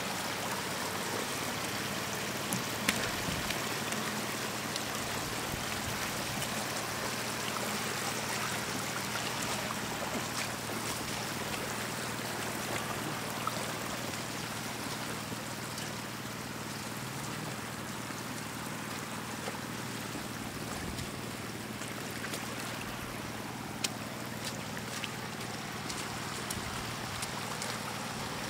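Shallow floodwater running steadily over ground and road, with a few brief sharp clicks.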